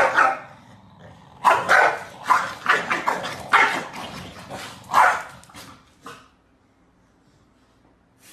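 Corgi barking: one bark, then a quick run of sharp barks that stops about six seconds in.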